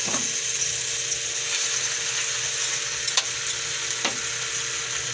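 Marinated chicken thighs sizzling steadily as they pan-fry in a little oil, just turned to brown the other side. The tongs click lightly against the pan twice, a little after three and four seconds in.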